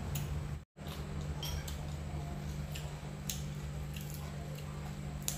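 Eating sounds: chewing, with scattered light clicks of chopsticks picking herb leaves from a plate, over a steady low hum. The sound cuts out completely for a moment just under a second in.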